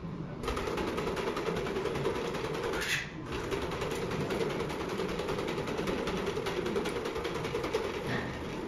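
Small quadruped robot dog's servo motors whirring with rapid ticking as it turns and walks on a concrete floor, starting about half a second in and dipping briefly about three seconds in.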